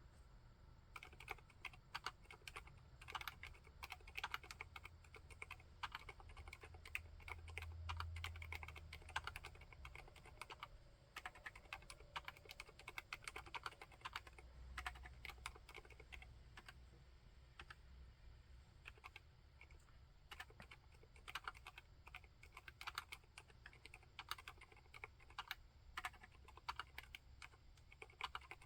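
Typing on an Akko Monsgeek M3 full-aluminium tenkeyless mechanical keyboard fitted with Haimu Seasalt silent switches: quiet keystrokes in quick, uneven runs, starting about a second in.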